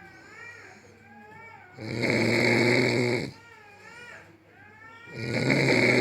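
A person snoring: two long snores about three seconds apart, each lasting over a second, with faint wavering high-pitched tones in the quiet gaps between them.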